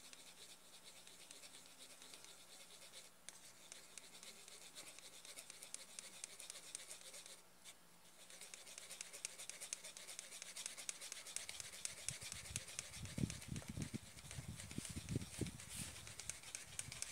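A utensil scraping egg yolk through a small plastic sieve: a faint, fast, continuous scratching. From about twelve seconds in, low thuds of handling join it.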